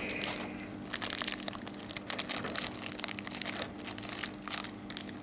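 Thin clear plastic bag crinkling and crackling irregularly as it is worked off a small action figure by hand, over a faint steady hum.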